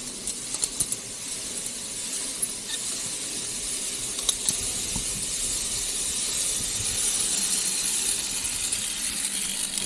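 Zipline trolley pulleys running along the steel cable as two riders are brought back in: a steady high hiss that grows slightly louder as they near the platform, with a few light metallic clicks.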